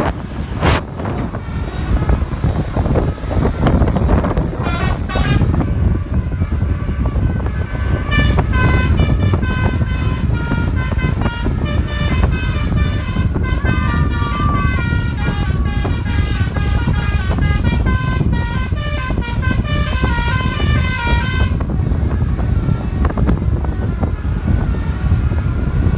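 Bus basuri (telolet) horn playing a fast multi-note tune, with the tones stepping rapidly up and down for about thirteen seconds before cutting off suddenly. A couple of short horn blasts come a few seconds earlier, over a steady low rumble of engines and traffic.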